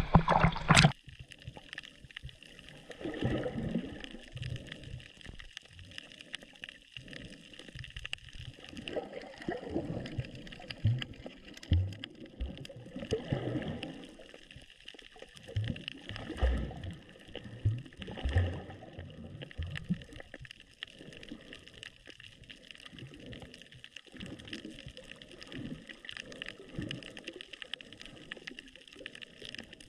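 Water gurgling and sloshing, heard underwater, in irregular surges every second or two over a steady faint hiss.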